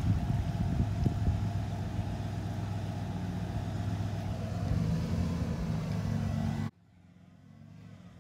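Old Ford pickup truck's engine running steadily while the truck sits in deep muddy water. The sound cuts off abruptly about two-thirds of the way through, leaving only a faint background.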